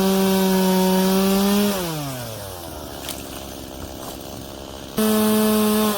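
Chainsaw held at full throttle with a steady high pitch, then let off: the pitch slides down to a low idle. About five seconds in it is revved back up to full speed, and it is let off again near the end.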